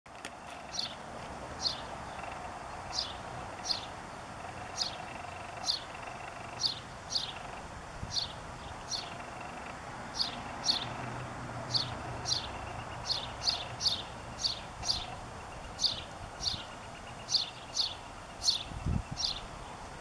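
Male house sparrow singing its simple song: a long string of short, bright cheeps, about one or two a second, coming quicker in the second half.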